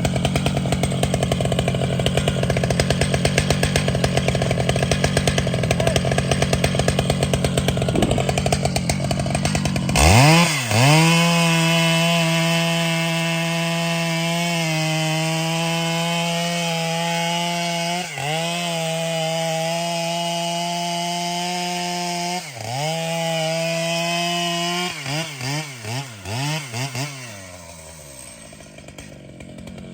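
Large two-stroke chainsaw running at lower speed, then revving sharply to full throttle about ten seconds in and holding a steady high note. The note dips briefly twice, then there are several quick throttle blips before the revs drop back near the end.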